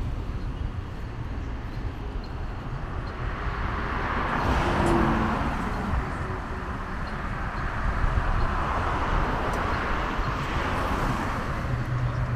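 Two cars passing on the road close by, each a swell of tyre and engine noise that rises and fades, the first about four seconds in and the second near nine seconds. A low rumble runs underneath.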